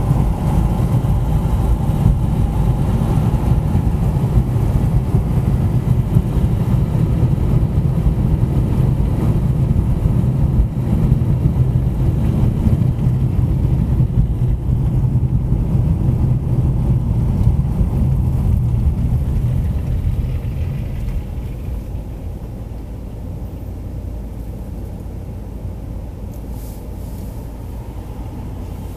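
Car driving on a city road: a steady low rumble of tyres and engine, which drops to a quieter, lighter rumble about two-thirds of the way through.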